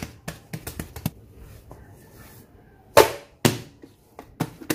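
Hands pressing and patting proofed bread dough on a silicone mat to knock the air bubbles out: a quick run of soft pats in the first second, then a few louder single slaps from about three seconds in.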